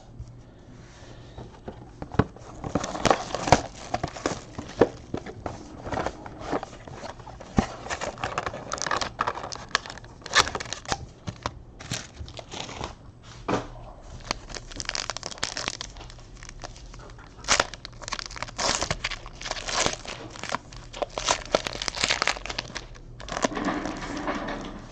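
Foil trading-card pack wrappers being torn open and crinkled by hand, an irregular crackling and rustling.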